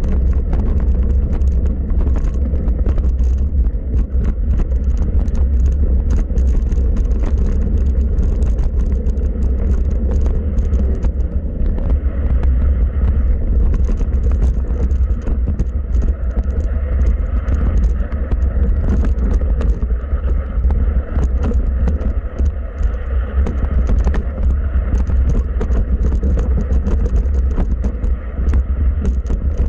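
Wind buffeting the microphone of a camera riding a mountain bike downhill, a loud steady rumble, with the bike and its tyres rattling and clattering over a rough dirt trail.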